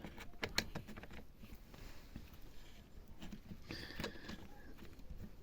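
Faint, scattered clicks and taps of small parts being handled and fitted into an opened jigsaw's reciprocating mechanism, with a brief scrape about four seconds in.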